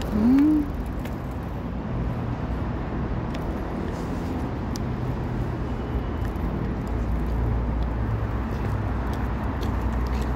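Steady low rumble of distant road traffic, with a short rising-and-falling hum right at the start and a few faint clicks.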